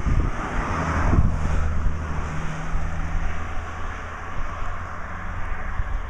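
Wind buffeting the microphone in gusts, with a low steady hum during the first half.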